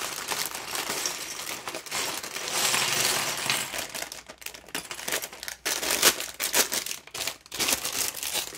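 Plastic LEGO parts bag crinkling as it is handled, then small plastic LEGO pieces clicking and clattering against each other.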